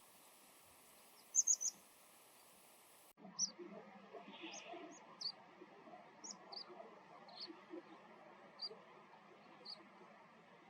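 Buff-bellied pipit (タヒバリ) giving its short, sharp, high call notes: a quick triple about a second and a half in, then single calls about once a second over low background noise. These are the ordinary calls the bird gives when it takes off.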